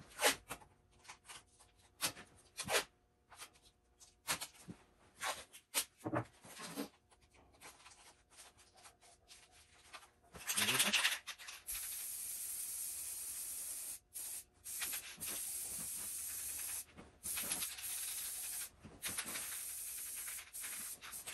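Masking tape unrolled and pressed down around a wooden base in short, scattered pulls. A little past halfway, an aerosol spray-paint can starts hissing steadily in long bursts with a few brief breaks.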